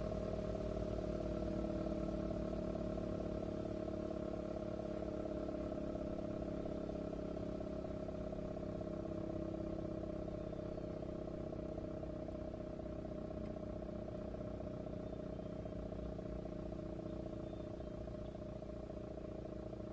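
ACA Banshee 115 outdoor warning siren sounding, its tone held at one steady pitch and growing slightly fainter near the end.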